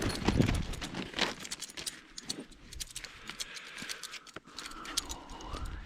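A person moving about and handling gear: rustling with many light clicks, rattles and crunches, without a steady rhythm.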